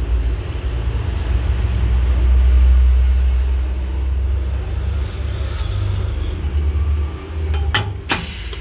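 A steady low rumble, with two sharp clicks near the end as the laminating machine's door latch is handled.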